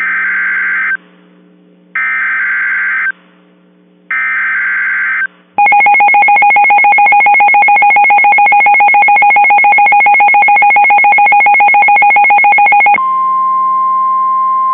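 Emergency Alert System / NOAA Weather Radio alert: three short bursts of screeching SAME digital header data, two seconds apart, announce a new warning. They are followed by a rapidly pulsing two-tone alarm for about seven seconds, which switches near the end to a steady single-pitch warning alarm tone.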